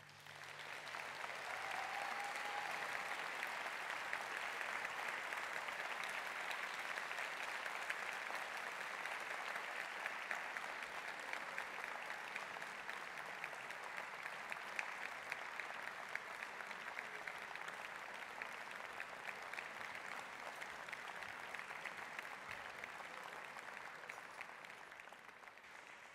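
Concert hall audience applauding: steady clapping that swells in the first second, holds, then slowly thins.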